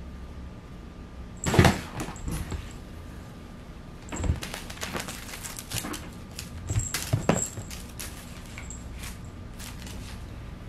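Cat playing at a carpet-lined tunnel on a wooden floor: a sharp knock about a second and a half in, then a run of scratching, tapping and scuffling from about four to eight seconds in.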